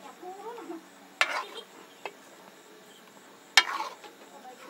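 Metal spatula stirring and scraping chicken frying in thick masala in an aluminium kadhai, with two louder scrapes, about a second in and again near the end, over a faint sizzle.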